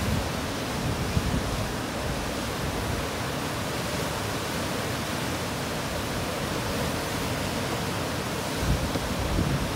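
Steady rushing of river whitewater breaking on a standing river wave, with a few low gusts of wind buffeting near the end.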